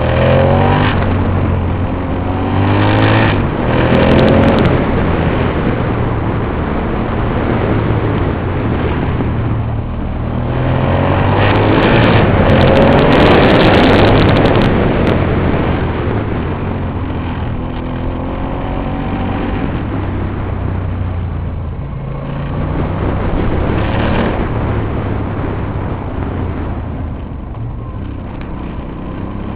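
Aprilia Dorsoduro 1200 motorcycle's V-twin engine running and accelerating several times, its pitch rising with each pull. The longest and loudest pull comes about halfway through, and the engine settles lower near the end.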